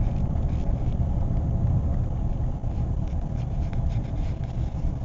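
Steady low road and engine rumble of a car driving along a road, heard from inside the cabin.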